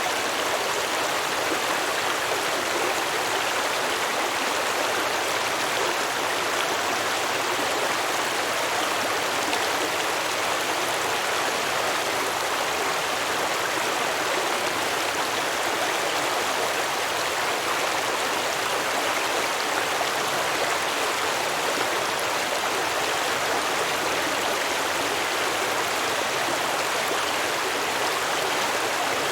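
A stream flowing over rocks close by: steady, even babbling and rushing of water with no breaks.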